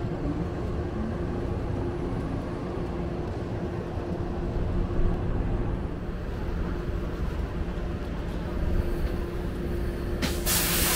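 Inside a San Francisco Muni electric trolleybus: a steady low rumble with a constant hum. About ten seconds in, a loud hiss of compressed air sounds for about a second.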